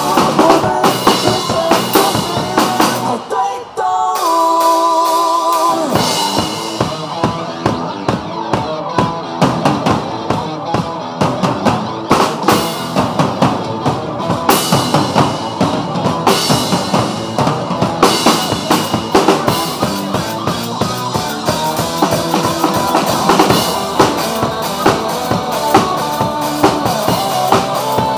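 Acoustic drum kit played hard along to a recorded pop-rock backing track, with kick, snare and cymbals driving the beat. About three seconds in, the drums stop briefly and only the backing track's held melody notes sound. The full kit comes back in about six seconds in.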